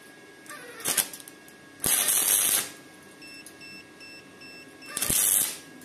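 Parkside PIFDS 120 B2 flux-core wire welder arc crackling in three short bursts as the torch is held to the steel: a brief one about a second in, a longer one of under a second near two seconds, and another near the end, on the machine's 2.5 setting.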